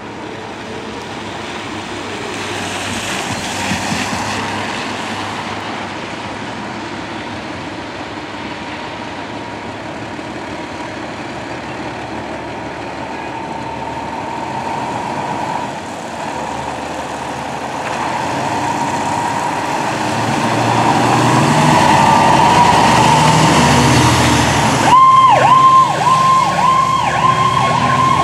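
Diesel engines of fire apparatus running and growing louder as the trucks pull out, with a siren tone rising slowly underneath from about halfway. Near the end an electronic siren sounds loudly in a fast yelp, sweeping up and down about three times a second.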